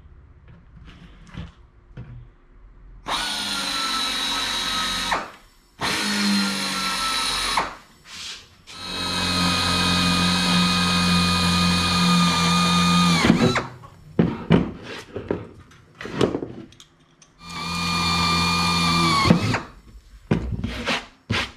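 A pneumatic air drill drills holes in aluminum sheet-metal aircraft parts. It runs in four bursts with a steady high whine: about three seconds in, again at six seconds, a longer run of about four seconds from nine seconds, and once more near the end. Each burst winds down in pitch as the trigger is let go, and light clicks and knocks of handling come between the bursts.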